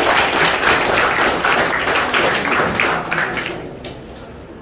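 Audience applause, many hands clapping together, dying away about three and a half seconds in.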